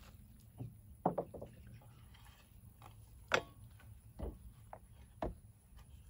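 A long-handled digging tool knocking and scraping in a plastic barrel of soil as potatoes are dug out: a handful of short, irregular hollow knocks, the loudest a little past three seconds in.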